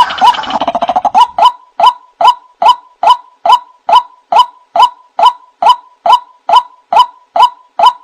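White-breasted waterhen (ruak-ruak) calling: a jumble of overlapping calls for about the first second, then a steady run of single, evenly spaced notes, about two and a half a second. This is a bird-lure call recording (suara pikat).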